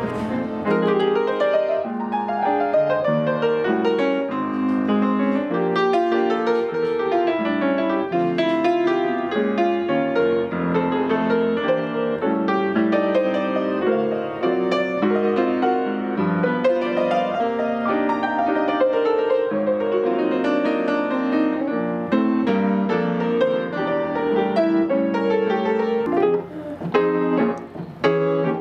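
Piano music playing, a steady flow of notes.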